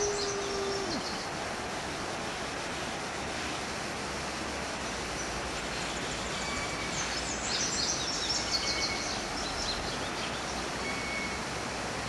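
A dog's howl holds one steady note, then drops off and ends about a second in. Outdoor background hiss follows, with high chirping and whistling bird calls, busiest about two thirds of the way through.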